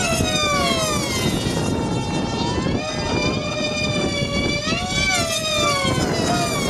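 F3D pylon-racing model planes' two-stroke engines running at high revs as they fly the course. The pitch drops sharply as one passes just after the start, then rises and falls again about five seconds in.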